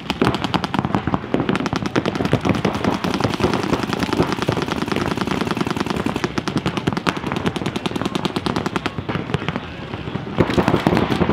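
Several paintball markers firing rapid strings of shots at once, a dense overlapping clatter that thins out briefly about nine seconds in and then picks up again.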